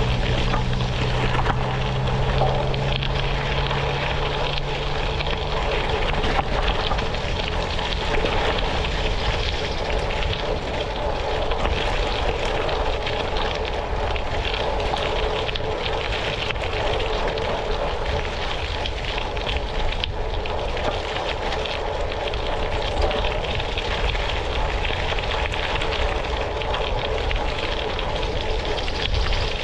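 Tyres rolling over a gravel road: a steady crunching rumble mixed with wind noise. A low hum in the first few seconds fades out.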